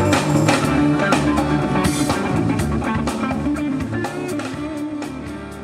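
Folk band playing live, with guitar and drum kit, getting steadily quieter over the last couple of seconds.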